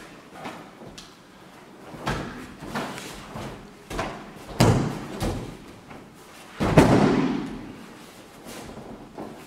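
Thuds and slaps of karate partners on tatami mats during throwing drills: several sharp impacts and gi fabric snapping, the loudest about two-thirds through as a partner is thrown down onto the mat.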